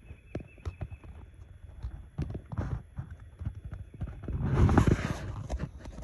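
Footsteps crunching on dry leaves and ground as someone walks, irregular short knocks over a low wind rumble on the phone microphone, with a louder rush of noise near the end.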